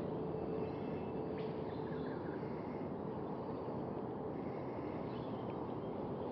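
Steady outdoor background noise on the water, with a faint steady hum for the first two seconds and a few faint high chirps.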